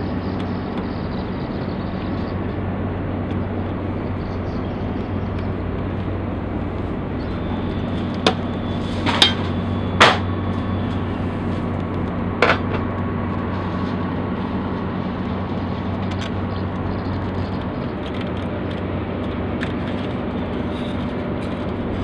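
Steady low machine hum, with a few sharp clicks or taps from hand work on metal hardware between about a third and halfway through.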